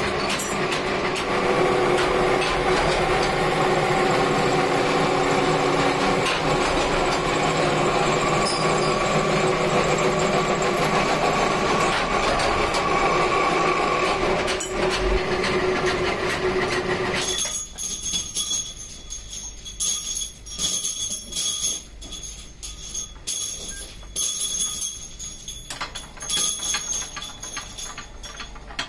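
Bench drill press running and drilling into steel U-hook blanks: a loud, steady motor hum with the noise of the bit cutting metal. About 17 seconds in it gives way to quieter, uneven metal clinks and clatter from a small bench-mounted machine with a chuck.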